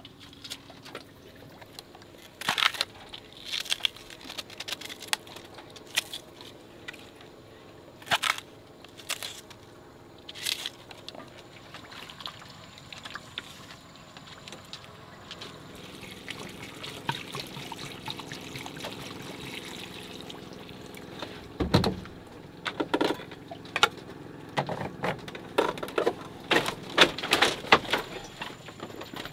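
Water pouring and trickling, mixed with scattered knocks and clatter, which are thickest near the end.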